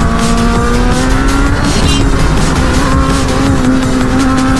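Motorcycle engine running at steady high revs while riding, its pitch slowly rising.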